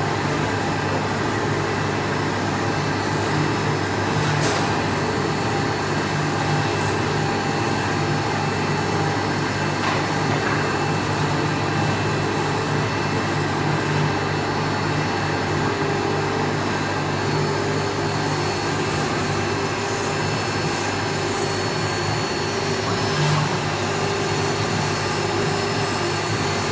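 UTECH CNC router's spindle cutting lettering into a white sheet, a steady whine over a continuous milling noise.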